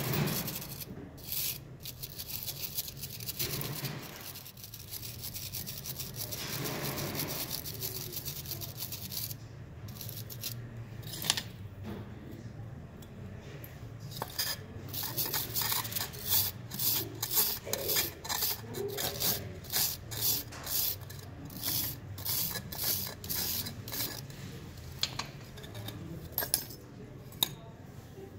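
Wire brush scrubbing plaster investment off a cast aluminum piece, followed by a run of short scraping strokes, about two a second, as the remaining plaster is scraped from the metal.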